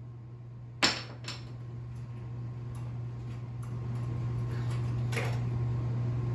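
Ceiling fan motor humming steadily and getting louder over a few seconds, with a sharp metallic clink about a second in and a few lighter clicks.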